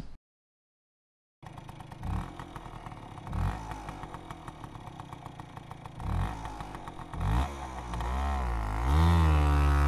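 Motor scooter engine revving up and down repeatedly, growing loud near the end, over a background of passing traffic; it starts after about a second and a half of silence.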